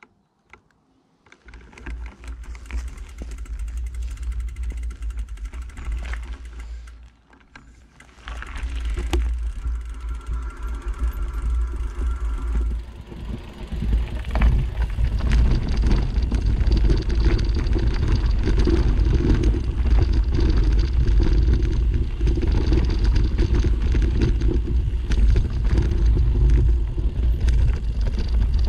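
Wind rumbling on the microphone of a camera on the move, a steady low buffeting that drops away briefly about seven seconds in and gets louder from about halfway through.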